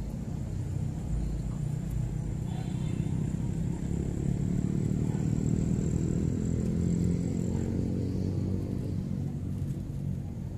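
Low engine rumble of a passing motor vehicle, swelling in the middle and easing off near the end. A thin steady high-pitched tone runs alongside and stops about three quarters of the way through.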